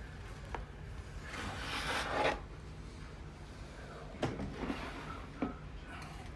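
Plastic reptile tub being handled and slid: a scraping rustle about two seconds in, then a few sharp plastic knocks.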